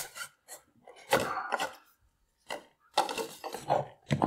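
A printed card sleeve slid off a small white cardboard box, the cardboard scraping, and the box knocking on a wooden tabletop in several short, uneven bursts.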